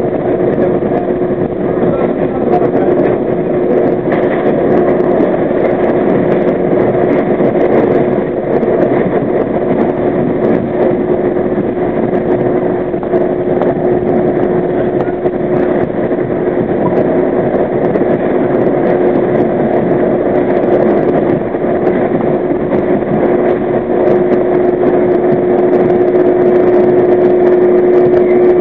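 R32 subway car running at speed through a tunnel: steady rumble of steel wheels on the rails with a constant hum running through it, growing a little louder near the end.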